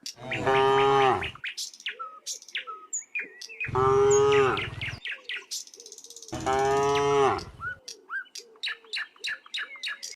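Cows mooing: three long moos, each about a second and a half, spaced a few seconds apart, with short chirps and clicks in the gaps between them.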